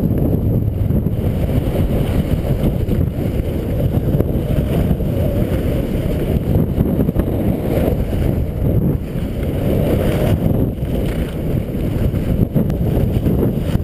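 Wind buffeting the microphone during a descent down a ski slope: a steady, loud low rumble with no pauses.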